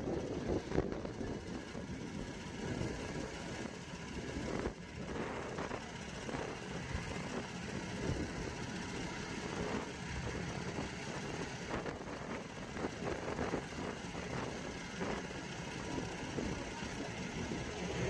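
Fire-rescue truck's engine running steadily while it powers its truck-mounted hydraulic crane lowering a trailer.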